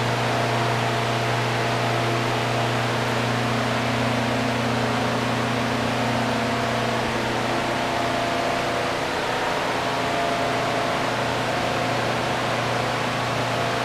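Steady machine hum with an even hiss over it, unchanging and without any rhythm.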